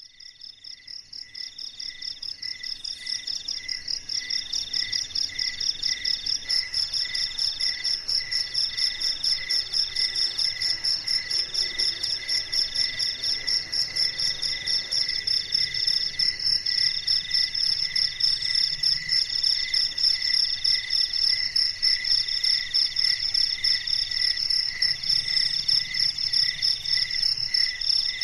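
Night insect chorus: several crickets chirping in steady pulsing rhythms at different pitches, one of them in longer trills broken by short gaps. It fades in from silence over the first few seconds.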